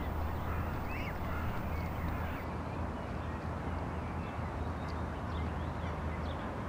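Outdoor ambience: a steady low rumble on the camera microphone, with faint, scattered short bird calls and chirps over it.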